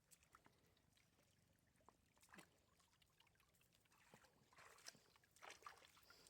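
Near silence, with faint scattered splashes and trickles of shallow water.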